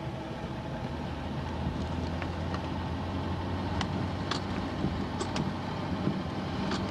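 Car engine and road noise while driving: a steady low hum with a few light clicks.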